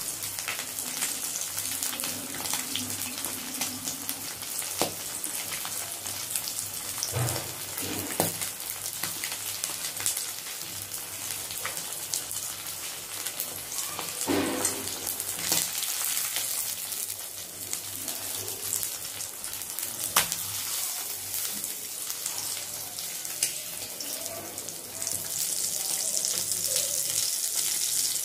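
A semolina-coated fish piece shallow-frying in hot oil in a kadai: a steady sizzle with scattered crackles and pops, getting louder near the end.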